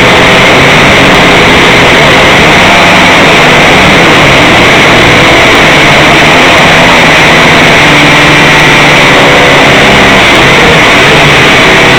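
A small drone's motors and propellers running, picked up by its own onboard camera microphone: a very loud, steady whirring drone with small shifts in pitch as it flies.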